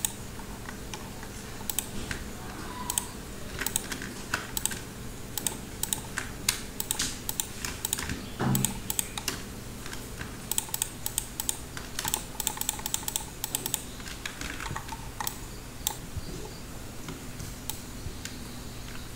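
Computer mouse and keyboard clicking irregularly, often in quick runs, over a faint steady low hum.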